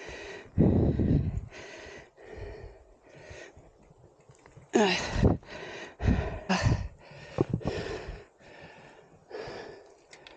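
A man panting hard from exertion, with a steady run of heavy breaths. About five seconds in comes a strained groan that falls in pitch, with a few short knocks after it.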